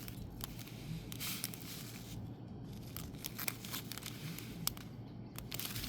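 Plastic packaging crinkling and rustling in the hands, with scattered small clicks and a few longer rustles, as a diamond painting kit and its bags of drills are handled.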